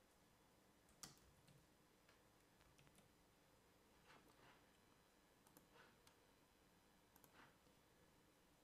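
Near silence with faint, scattered clicks of computer keyboard typing and mouse clicks. The sharpest click comes about a second in, and small clusters follow later.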